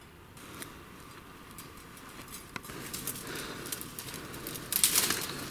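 Footsteps and clothing brushing through dry scrub and tall grass on a hillside path, a steady rustle with twig snaps and crackles that grows louder toward the end.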